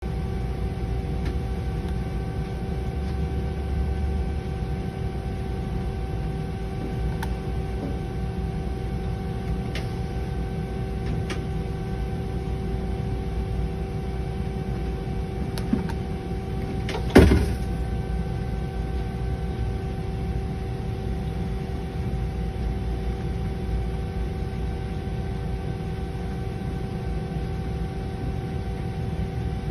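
Doosan Puma GT2100 CNC lathe humming steadily at standstill, a few constant pitches over a low rumble, while its parts catcher swings out and back. A few light clicks and one sharp clunk come a little past halfway.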